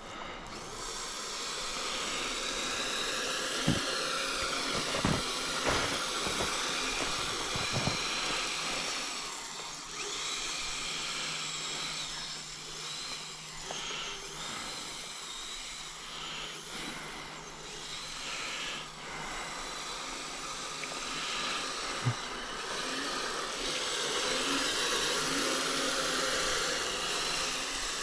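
Kyosho Blizzard tracked RC snowcat's electric motor and gears whining, the pitch rising and falling with the throttle. A few dull thumps come in the first eight seconds and another about 22 seconds in.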